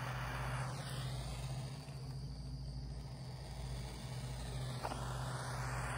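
Hiss of a Bernzomatic handheld gas torch flame heating plastic on a kayak hull. The hiss fades from about a second in as the torch is moved off, then comes back near the end, over a steady low hum, with one small click shortly before it returns.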